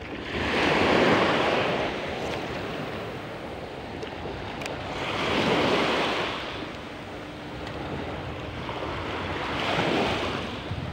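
Small waves breaking and washing up onto the beach, swelling three times about four to five seconds apart over a steady rush of sea.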